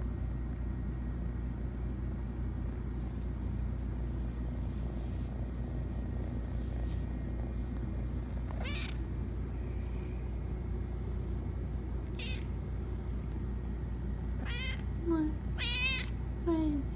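Domestic tabby cat giving a few short, high meows and chirps in the second half, loudest near the end, over a steady low hum.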